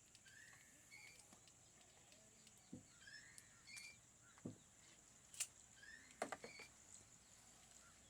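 Faint outdoor ambience: a bird gives a short rising call three times, a few seconds apart, over a steady high-pitched insect drone, with a few faint clicks.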